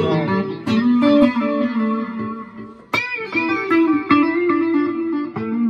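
Electric guitar, a Stratocaster-style instrument, played through a Boss combo amplifier: single-note lines with held, sustained notes, and one sharply picked note about three seconds in after a brief drop in level.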